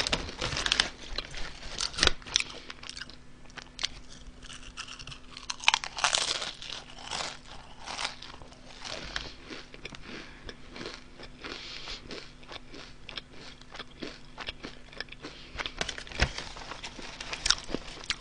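Close-miked crunching and chewing of Honey Butter Chip potato chips, many short crisp crunches, with the foil-lined chip bag crinkling as a hand reaches in.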